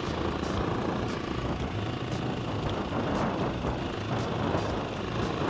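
AJP PR7's 600 cc single-cylinder engine running steadily under way, with tyre and gravel noise and wind over it.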